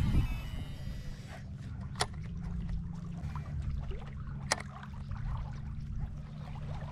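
Steady low hum with light water noise at a lakeshore, and two sharp clicks, about two seconds and four and a half seconds in.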